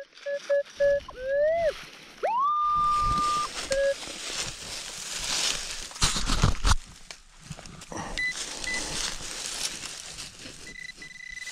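Minelab Equinox 800 metal detector giving target tones as its coil sweeps over dry stalks: a few short low beeps, a rising tone and a held higher tone, signalling buried metal. Near the end come short high beeps and a held high tone, with dry stalks and leaves rustling and crunching underfoot.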